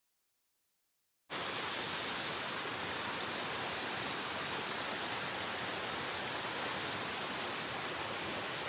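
Shallow creek water running fast over a rock slab: a steady, even rushing hiss that starts suddenly about a second in.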